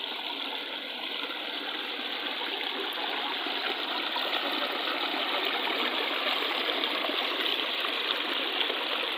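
Stream water pouring and splashing over rocks close to the microphone, a steady rush of water.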